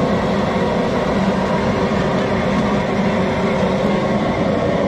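Propane burner under a large crawfish boil pot, running loudly and steadily to bring the water back up to a boil.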